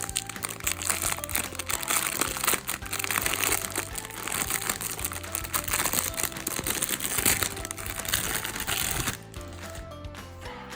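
Plastic packaging crinkling and crackling as it is handled and pulled at, stopping about nine seconds in, over background music.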